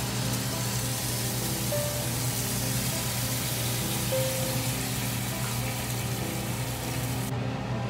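Water poured into a hot oiled frying pan of sliced bitter gourd and garlic, sizzling and hissing steadily, over faint background music. The sizzle cuts off abruptly near the end.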